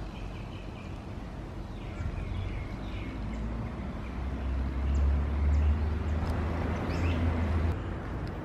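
A vehicle passing on a nearby road: its low rumble swells about halfway through and fades near the end. Birds chirp faintly over it.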